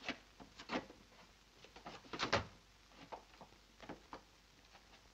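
Footsteps and knocks of people moving about the room, irregular and scattered, the loudest a double knock a little over two seconds in.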